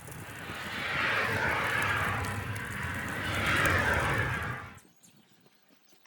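Blizzard wind rushing, swelling twice with a low rumble on the microphone, then cutting off suddenly about five seconds in.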